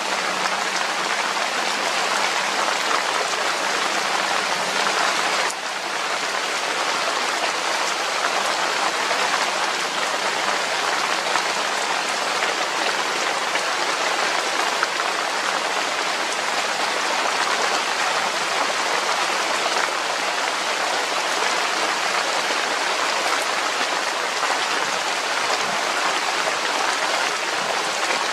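Steady rain falling, an even hiss of rain, with a brief dip about five seconds in.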